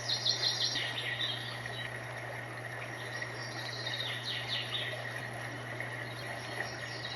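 GDbow white-noise sound machine playing a recorded nature track of chirping crickets, heard through its small built-in speaker. The chirps come in clusters, one at the start and another about three seconds in, over a steady low hum.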